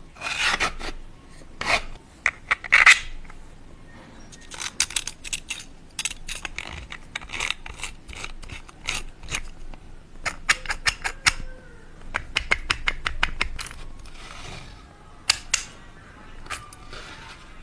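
Hard plastic clicking, clacking and rubbing as a 3D-printed phone stand is handled and its joints are moved, with a quick run of clicks about ten seconds in.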